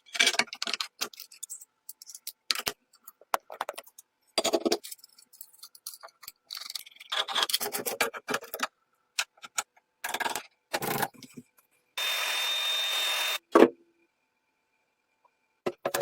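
Short scraping, rubbing and clicking sounds of hand work on the old drill's parts, in brief snippets with sudden silences between them. About three quarters of the way through, a steady hiss with a thin high whine lasts about a second and a half.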